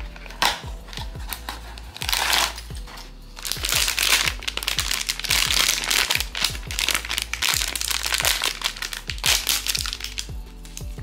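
Blind-box packaging being opened and handled: bursts of crinkling paper and plastic wrapping, heaviest in the second half. Background music with a steady beat plays under it.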